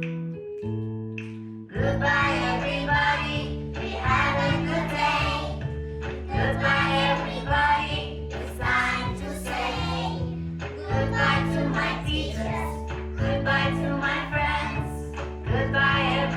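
A song with instrumental accompaniment: a short instrumental passage, then a group of children's voices comes in singing about two seconds in and carries on over the steady backing.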